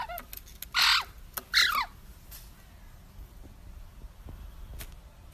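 Eurasian magpie giving three short, harsh calls within the first two seconds, the loudest about a second in.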